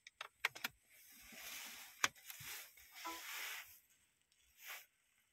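Handling noise as a USB plug is pushed into a laptop's port: a few sharp clicks in the first second and a louder click about two seconds in, with rustling, hiss-like noise in between.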